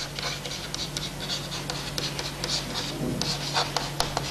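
Chalk scratching and tapping on a chalkboard as words are written by hand, a quick run of short strokes.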